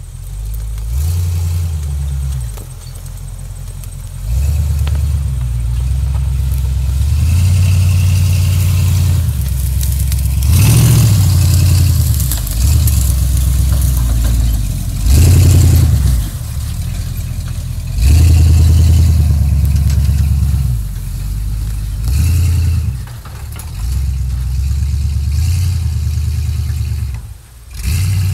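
Engine of a homemade tube-frame Warthog replica off-road buggy, revving up and easing off again and again as it drives through tall grass and brush. The loudest surges come around the middle.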